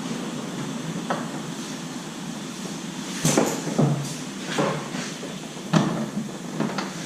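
Body-shop dent work on a car's quarter panel: a steady hiss, then about half a dozen irregular sharp knocks and taps starting about three seconds in.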